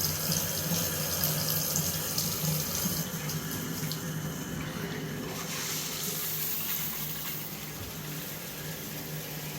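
Shower water running steadily from the faucet, with a steady low hum underneath it.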